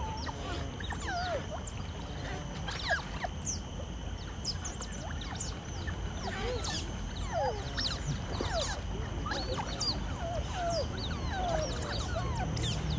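Smooth-coated otters calling, many short high squeaks and chirps in quick, irregular succession as nervous pups hesitate at the water's edge.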